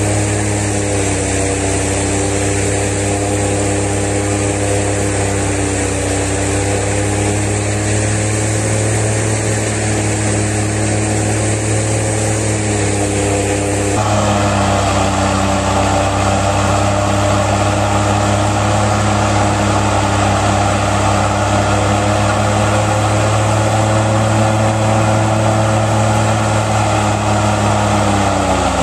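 Farm tractor engine running steadily at high revs. About halfway through it turns a little louder, with a rougher whine on top. Near the end the revs drop and its pitch falls.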